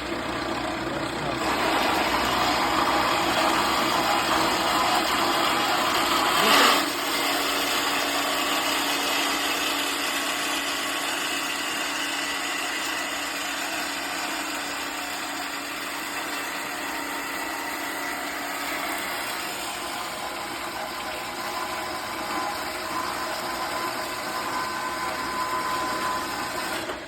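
Horizontal metal-cutting band saw running, its blade feeding slowly down through metal clamped in the vise. There is a brief louder burst about six and a half seconds in, and the noise cuts off at the end as the saw's automatic shut-off stops it with the blade all the way down.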